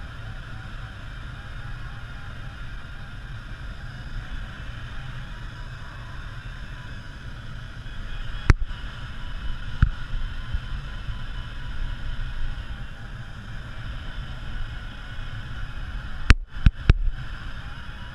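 Steady rushing airflow noise, heard from inside the cockpit of an ASK 14 motor glider in a circling turn. There is a single sharp knock about halfway through and a quick run of three knocks near the end.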